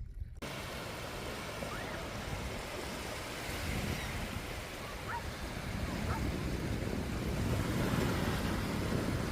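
Waves breaking on a beach with wind buffeting the microphone: a steady rushing noise with a low rumble that swells a little after the first few seconds. A few faint short chirps sound in the background.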